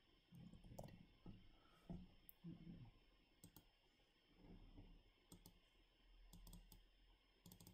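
Faint, scattered clicks of a computer mouse and keyboard, a dozen or so short sharp taps spread unevenly, some in quick pairs, over a steady low hum.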